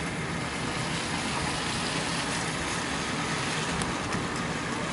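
Steady engine and tyre noise of a car being driven, heard from inside the cabin, with a few faint ticks about four seconds in.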